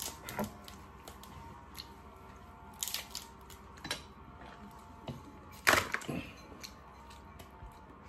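Scattered sharp cracks and clicks of steamed lobster and crab shell being broken and picked apart by hand, the loudest crack about two-thirds of the way through.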